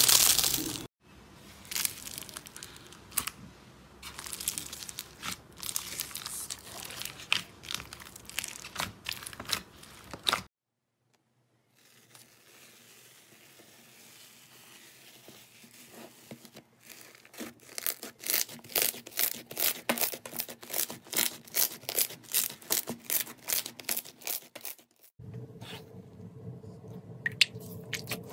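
Slime squeezed, stretched and pressed by hand, with crinkling and tearing sounds. It starts with a foil-covered slime crushed in the fist, then a fluffy slime is pulled through a tray, with a run of sharp clicky pokes about three a second. It drops to silence for about a second near the middle.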